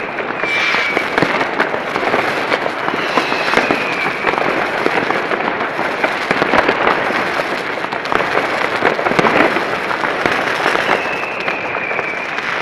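Many fireworks going off at once: a constant dense crackle of bangs and pops from rockets and firecrackers. Three times a high whistle, falling slightly in pitch, rises above the crackle from a whistling rocket.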